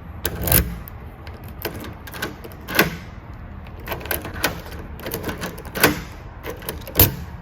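A metal key being worked in a smart lock's key cylinder: a run of small clicks and clacks, with four louder clunks.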